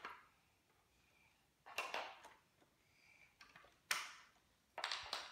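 Faint handling noises of Lego train cars on plastic track: four short scrapes and knocks with quiet between.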